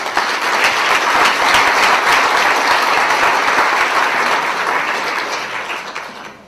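Audience applauding: many hands clapping in a dense, steady patter that fades away over the last second.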